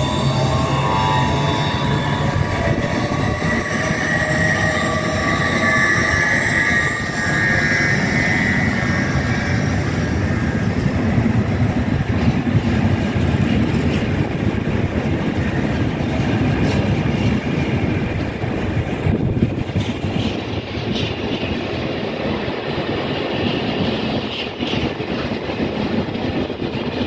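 Empty intermodal container flat wagons of a freight train rolling past close by, with a continuous rumble and clatter of steel wheels on rail. A high wheel squeal rings over the first eight seconds or so and fades out, and sharp clicks follow later.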